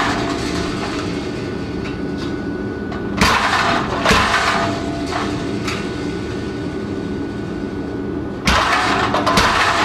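Blacksmith's mechanical power hammer, its motor running with a steady hum, striking a red-hot workpiece in short bursts about three and four seconds in and in a louder run near the end.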